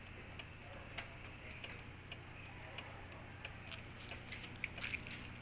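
Honda Click's hazard lights flashing, their flasher relay giving light, sharp ticking clicks over a low steady hum.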